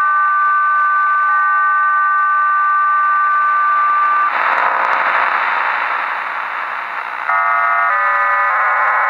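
HM01 numbers-station digital data signal received on a shortwave radio: a chord of several steady tones held for about four seconds, then a rush of static. Another chord of tones then shifts twice in pitch and settles into a dense multi-tone data transmission.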